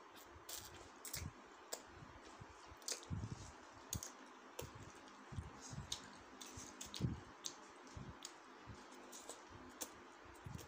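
Faint eating sounds: instant ramen noodles being chewed, with many irregular sharp clicks and a few soft low thumps as wooden chopsticks tap and poke into the noodles on a wooden board.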